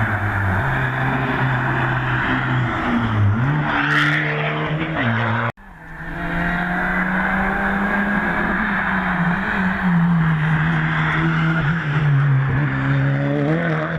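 Hill-climb race car engine revving hard, its pitch stepping up and down through the gears. The sound breaks off abruptly about five and a half seconds in, then an engine is heard revving again.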